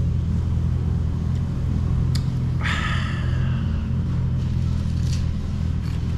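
Steady low rumbling hum made of several fixed low tones, with a short noisy scrape or clatter about two and a half seconds in.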